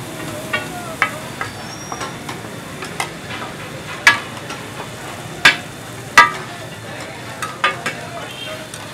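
Chicken frying in oil on a large flat tawa griddle, sizzling steadily, while a flat metal spatula scrapes and strikes the griddle. The spatula gives irregular sharp, ringing clangs, the loudest three a little past the middle.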